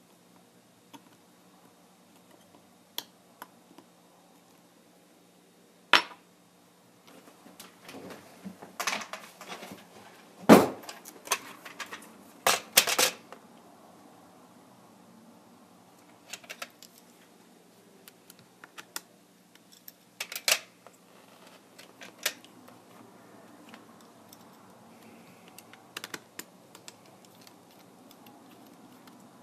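Irregular clicks and taps of small repair tools and loose parts against a Kindle Fire tablet being taken apart, with a dense run of louder clicks around the middle.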